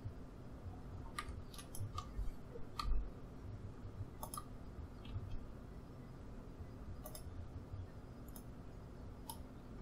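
Computer mouse and keyboard clicks: about eight sharp single clicks at uneven intervals, over a faint low hum.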